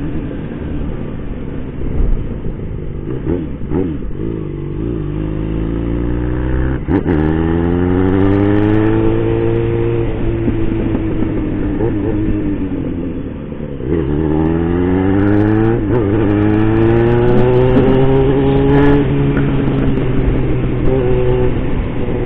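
Motorcycle engine heard from the rider's seat, accelerating hard: the revs climb steeply twice, with a brief drop in loudness between the climbs as a gear is changed.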